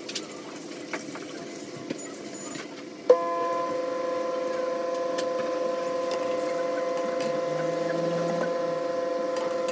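A few light clicks, then, about three seconds in, a click and a steady machine-like hum that starts suddenly and holds at one pitch.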